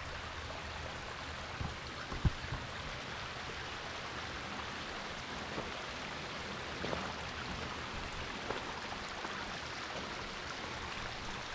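Steady rush of distant running water, a stream or falls heard across the slope. A short knock sounds about two seconds in.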